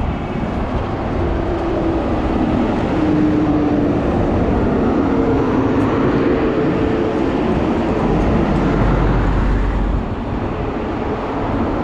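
Motor vehicle noise: a steady low rumble with road noise and a faint whine that drifts up and down in pitch, the rumble swelling about eight seconds in.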